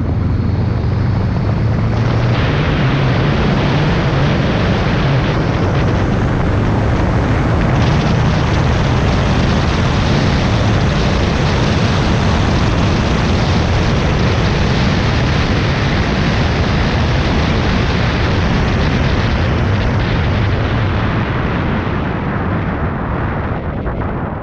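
Wind rushing and buffeting over an exterior-mounted microphone as a Subaru WRX wagon drives at road speed, with the car's turbocharged flat-four engine running beneath it. The sound eases slightly near the end.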